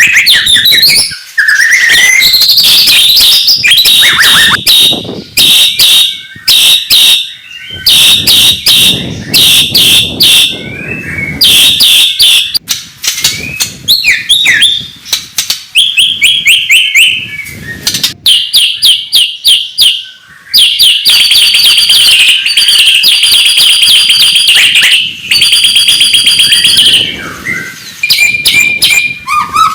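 White-rumped shama (murai batu) singing loudly: a long, varied song of rapid trills and fast repeated notes, with rising whistled notes near the start, broken by a few brief pauses.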